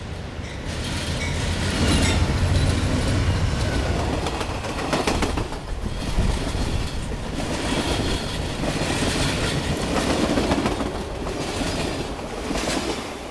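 A train passing close by: a heavy rumble that swells over the first couple of seconds, with the clacking of its wheels over the rails all through.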